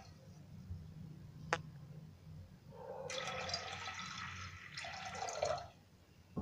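Water poured from a glass into a metal pressure cooker of soaked urad dal and kidney beans. A single short click about one and a half seconds in, then a glassful of water splashes in for about three seconds and stops near the end.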